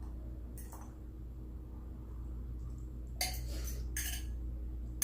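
A few short clinks of cutlery against a plate during eating, over a steady low hum.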